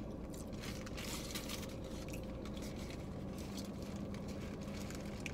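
Paper sandwich wrapper crinkling as a fried chicken sandwich is handled and lifted, then a bite and chewing, over a steady low hum inside a car.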